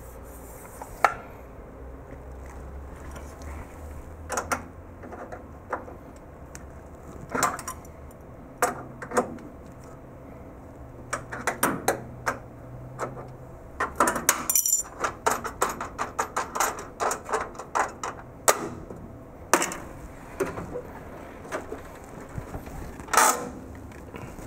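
Ratcheting wrench clicking as a cabinet-joining bolt is undone, with scattered metal clinks from the tool and bolt. The clicks come in short runs, fastest and densest in the middle, with a sharp clink about a second in and another near the end.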